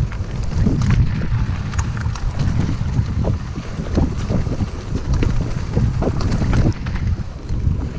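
Wind buffeting the camera microphone as a mountain bike rolls along a dirt singletrack, with scattered clicks and rattles from the bike and tyres over the rough ground.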